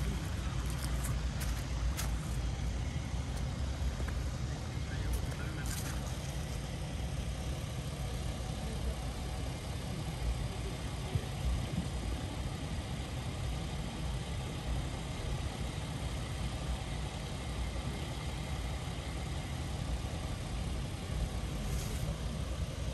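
Outdoor town street ambience: a steady low rumble with a faint background haze and a few small clicks.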